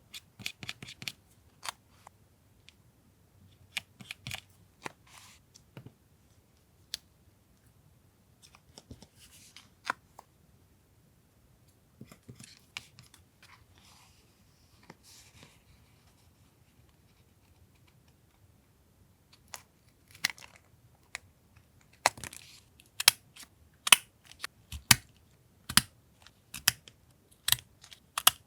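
Scissors snipping through paper, with paper rustling and handling in between. Over the last several seconds come sharp, regular snips about one a second.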